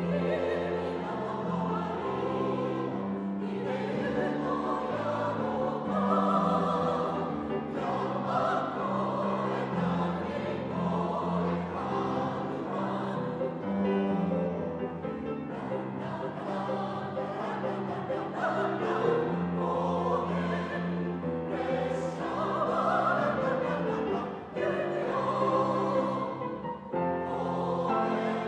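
Mixed choir of women's and men's voices singing a Japanese song in harmony, accompanied by a grand piano.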